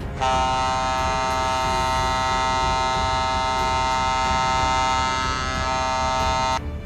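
A ship's horn sounding one long, steady blast of about six seconds that starts and stops abruptly.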